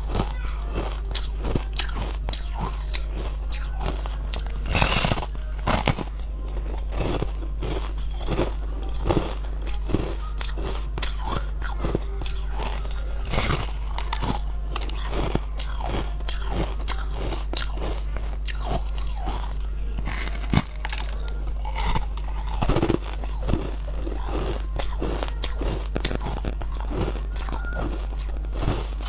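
Close-miked crunching and chewing of hard frozen red flavoured ice bitten off a large ice block, with a few much louder crunches as big pieces snap off. A steady low hum runs underneath.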